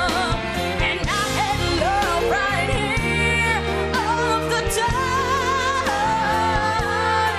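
A young girl singing a pop ballad with vibrato on held notes, backed by a live band with keyboard.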